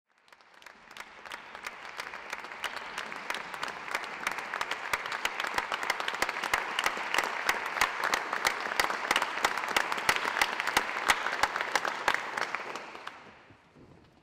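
Audience applauding: dense clapping that swells over the first second or two, holds steady, then dies away near the end.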